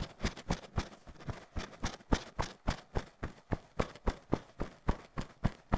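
Hands patting the upper chest just below the collarbone, a steady run of soft pats about four a second, to warm the tissue over the lungs.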